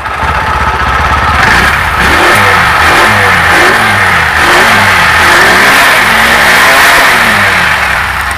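TVS XL 100 BS6 moped's small single-cylinder four-stroke engine starting and running, the throttle blipped over and over so the engine note rises and falls. It now starts properly, the no-start fault from rat-chewed ECU wiring having been repaired.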